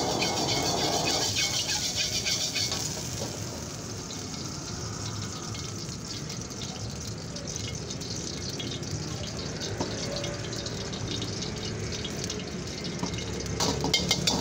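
Hot oil sizzling in a black iron wok over a gas flame, with a steel ladle swirling and scraping through the oil for the first few seconds. The sizzle then settles to a steady hiss, and the ladle scrapes and clinks against the wok again near the end.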